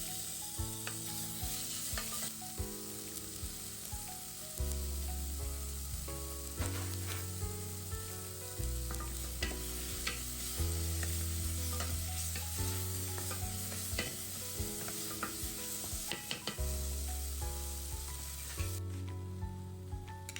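Food frying and sizzling in hot oil in a pan while it is stirred, with frequent clicks and scrapes from the stirring. The sizzling cuts off near the end, leaving only the clicks. Background music with a bass line plays underneath.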